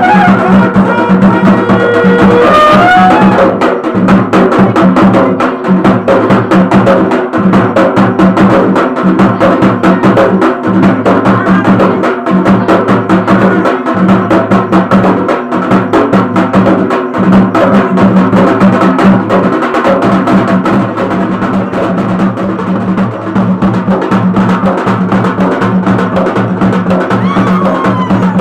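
Traditional Pahari folk music: fast, continuous drumming over a steady held tone from a wind instrument, with a rising pitched note about two to three seconds in.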